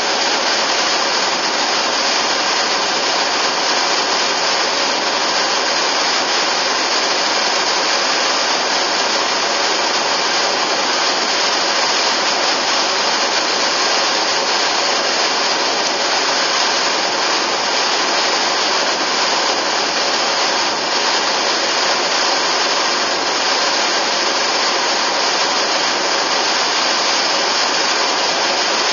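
Steady rushing noise of a car driving at speed, tyre and wind noise, hissy and even, with no clear engine note standing out.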